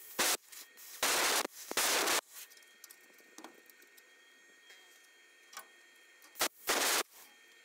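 Plasma cutter fired in short bursts of hiss as it cuts back a rusted, lapped-over layer of steel frame: three bursts in the first two seconds and two more near the end, quiet between them.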